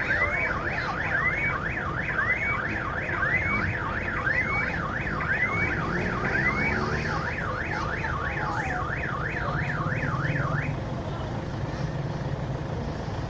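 Car alarm sounding, a fast up-and-down electronic wail alternating with rising whoops, cutting off about eleven seconds in. A steady low traffic rumble runs under it.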